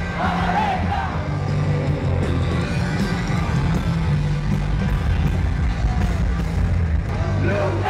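Live rock band playing loud, with heavy bass and drums throughout and a singer's voice just after the start and again near the end.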